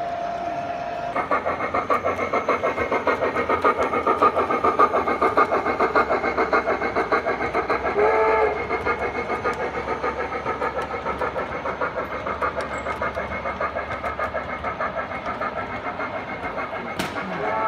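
O scale model train running past. From about a second in there is a fast, even rhythmic pulsing of several beats a second, with a short pitched sound about halfway through.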